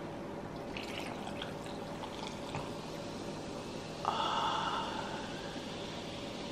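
Cream soda poured from a can over ice into a glass, fizzing as it foams up. A steady pouring hiss comes in suddenly about four seconds in and fades over the next second or so.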